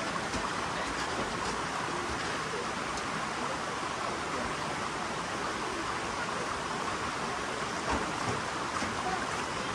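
Waterfall: water falling and splashing as a steady, unbroken rush of noise.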